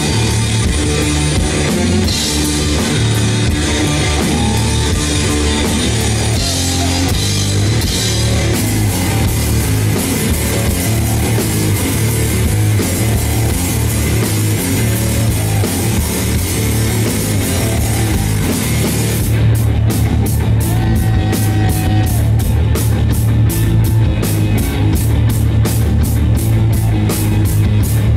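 A two-piece rock band playing loud and live: electric guitar over a drum kit, with cymbals struck on a fast, even beat from about two-thirds of the way through.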